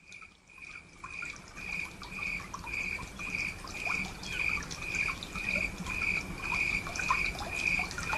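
Night pond ambience, fading in at the start: water trickling and dripping, with a high chirp repeating evenly about twice a second.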